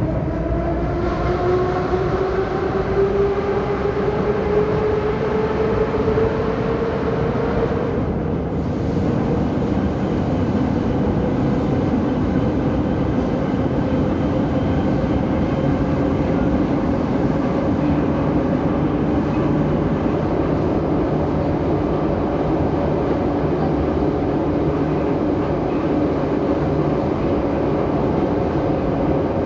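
The traction motors of an 81-717.5A/714.5A metro train whine as it accelerates, the pitch rising over about the first eight seconds and then holding steady as the train runs at speed, with the steady rumble of the wheels on the track beneath it, heard from inside the car.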